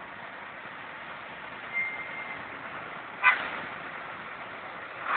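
Steady hiss of a fire hose spraying water onto a burning car. A brief high beep comes about two seconds in, and a sharp crack about three seconds in, with another near the end.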